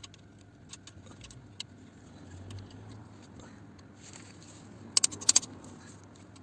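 Metal hand tools working on engine bolts: faint scraping and small clicks, then a quick run of four or five sharp metallic clinks about five seconds in.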